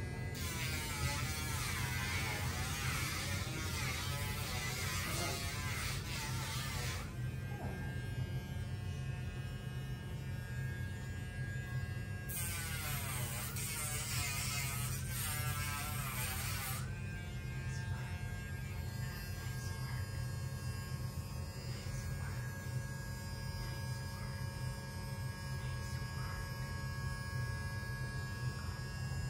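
Dremel rotary tool running with a steady motor hum, grinding a dog's toenails in two spells, from about half a second to seven seconds in and again from about twelve to seventeen seconds in. The grinding adds a harsher, higher noise whose pitch dips and recovers as the bit bears on the nail.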